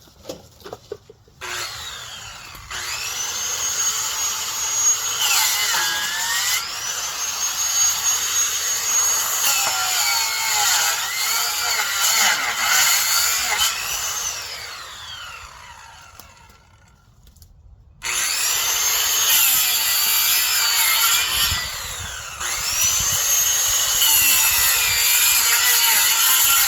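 Electric saw cutting branches: the motor runs up to a high pitch and drops in pitch as it bites into the wood, over and over. It stops for a couple of seconds about two-thirds of the way through, then starts cutting again.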